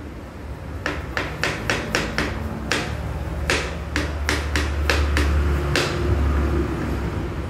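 A kitchen knife chopping a carrot on a wooden chopping board: a run of quick sharp knocks, about three or four a second, starting about a second in and stopping near the six-second mark. A steady low rumble runs underneath.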